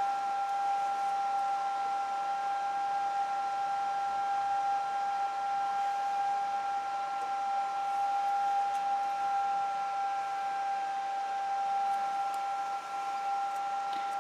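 A steady, high-pitched electrical whine that holds one pitch, with fainter higher tones above it, over a light hiss.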